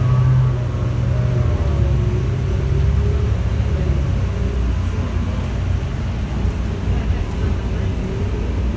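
A 2020 New Flyer Xcelsior XN40 city bus heard from inside the cabin while driving: its Cummins L9N natural-gas engine and drivetrain make a steady low rumble along with road noise. A faint whine rises and falls above the rumble.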